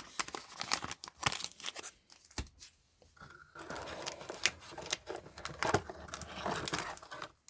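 Foil Pokémon booster pack wrapper being handled and torn open: a few sharp ticks and snaps, then a longer stretch of crinkling from about three seconds in.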